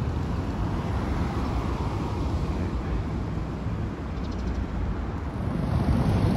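Steady low outdoor rumble of road traffic and wind buffeting the microphone, with no distinct events.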